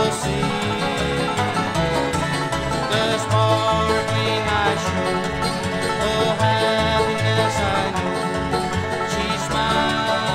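Bluegrass band playing an instrumental break with no singing: banjo and guitar over a steady bass pulse.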